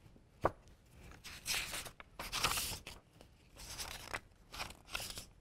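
Pages of a picture book being opened and turned: a light tap about half a second in, then about four soft swishes of paper roughly a second apart.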